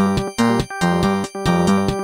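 Alcatel OT 835 ringtone played as MIDI through MidRadio: a synthesized melody of short notes in a quick, regular rhythm, over a bass line.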